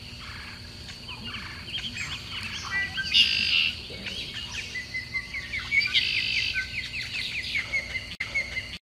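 Small birds chirping and calling, several overlapping, with a quick run of short chirps from about five seconds in; the sound cuts off abruptly near the end.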